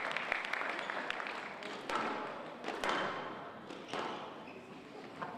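Applause dying away, then a squash rally: the ball is struck by rackets and smacks off the walls in four sharp hits about a second apart.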